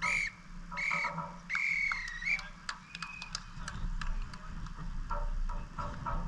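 Referee's whistle blown three times, two short blasts and a longer third one, the pattern of the full-time whistle. Scattered clicks and voices follow.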